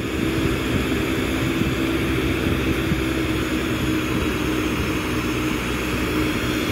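Glassblowing bench torch burning steadily, a constant rushing hiss with a steady low hum underneath.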